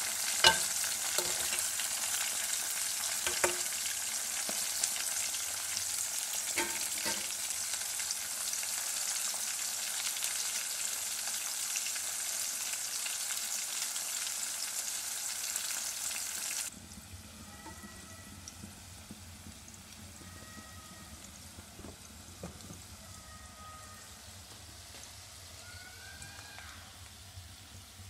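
Vegetables stir-frying in hot oil in an aluminium karahi: a steady sizzle, with a few sharp clicks of the spatula against the pan in the first several seconds. A little over halfway through, the sizzle drops suddenly to a much fainter level, with short high chirps over it.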